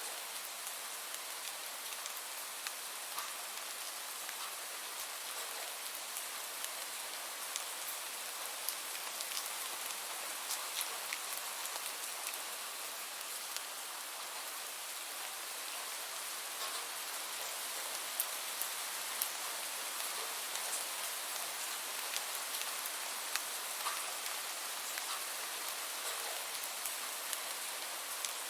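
Steady rain: an even hiss of rainfall with scattered sharp drops pattering on a surface.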